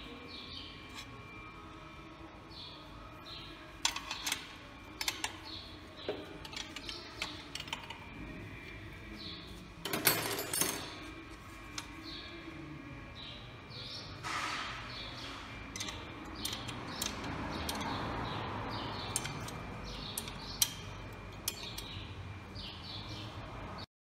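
Metal clicks and knocks from tractor hydraulic lift parts being handled, loudest about four seconds and ten seconds in, with small birds chirping over and over in the background.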